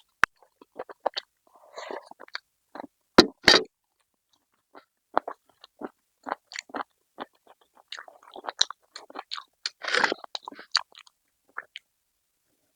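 Close-miked mukbang eating: a person chewing and crunching food, with a run of short crunches and mouth clicks separated by brief gaps. The loudest crunches come about three seconds in, and there is a longer, denser stretch of chewing near the end.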